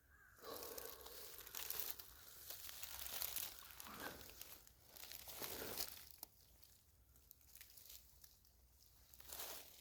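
Rustling and crackling from picking wild mountain pears, with scattered sharp snaps. It is strongest for the first six seconds, eases off, and comes back in a short burst near the end.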